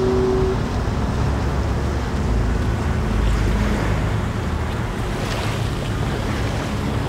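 Wind buffeting the microphone with a steady low rumble, over small waves washing on a sandy shore.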